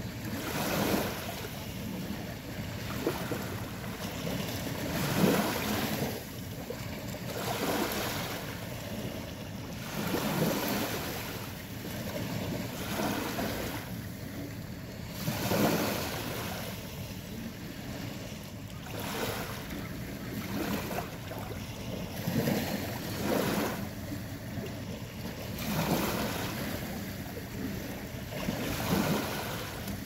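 Small sea waves lapping and washing over a pebble beach, one swell of hissing wash every two to three seconds.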